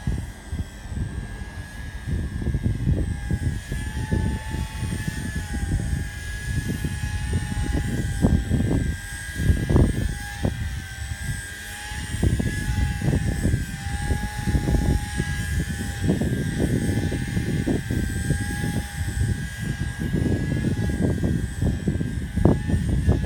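Align T-REX 150X micro electric RC helicopter hovering, its motors and rotors giving a steady high whine that wavers slightly in pitch. Strong wind buffets the microphone throughout with a gusting rumble and sharp jolts.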